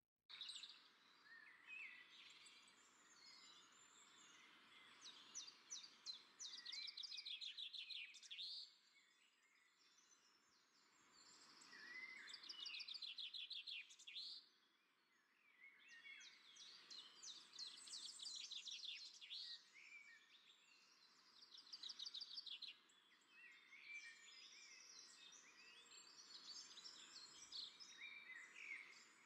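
Faint birdsong: several birds chirping, with bouts of rapid trilling every few seconds over a steady low hiss.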